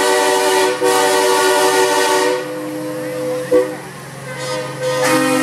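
Semi-truck air horns sounding chords. One long blast runs through the first two and a half seconds with a brief break near the start, and a second horn at a lower pitch comes in near the end. Under the horns is the steady low hum of the passing trucks.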